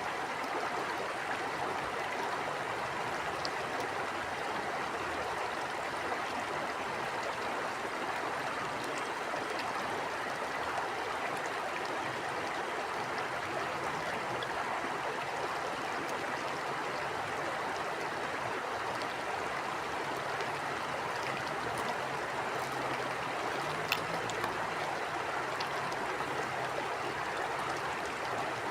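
Stream water flowing over rocks, a steady rushing and babbling, with a few faint clicks of splashes.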